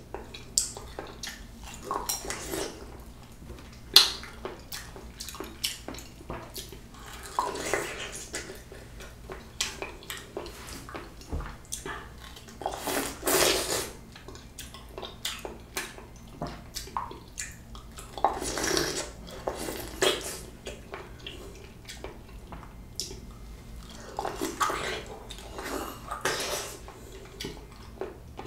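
Close-miked, juicy sounds of a ripe, soft peach being eaten: wet bites and chewing in irregular bursts, with fingers pulling at the soft flesh and skin.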